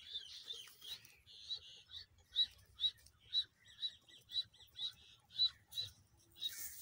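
A bird repeating a short, high chirp over and over, evenly, about two notes a second.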